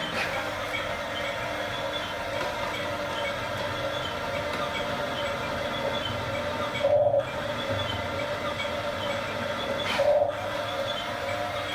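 Electric motors and gearboxes of radio-controlled model construction vehicles whirring steadily, with two brief louder surges about three seconds apart.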